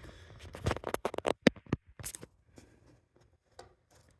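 A quick run of sharp clicks and scratches from a wire being worked against a plastic slot car track and its rail, loudest about a second and a half in, then a few faint ticks.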